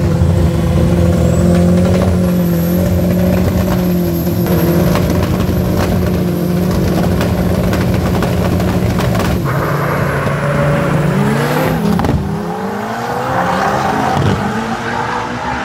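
Two Volkswagen Gol drag cars held at steady high revs on the start line, then launching about nine and a half seconds in, the engine pitch sweeping up and down through the gear changes before fading down the strip. A thin high whistle runs over the engines until the launch.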